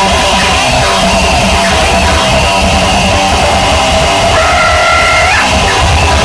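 Loud live industrial music: a dense, distorted wall of sound over heavy bass. A little past four seconds in, a high held tone sounds over it for about a second.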